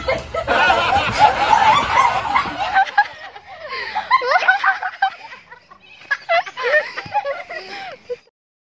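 Women laughing and giggling, their voices rising and falling; the sound cuts off suddenly near the end.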